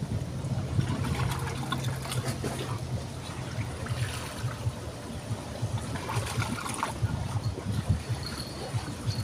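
River water trickling steadily, with scattered small clicks.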